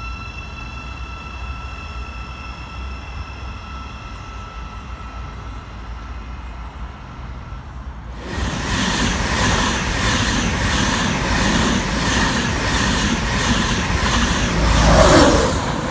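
Class 700 electric multiple unit pulling away, its traction motors giving a steady whine. About eight seconds in, a passenger express passes close at speed: loud rushing with a regular beat of wheels going by, and a falling tone near the end at its loudest.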